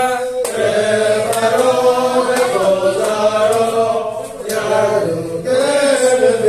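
A congregation singing a Hanukkah song together in unison, voices only, with no instruments. The sung lines run on with sustained notes and a short breath between phrases about four seconds in.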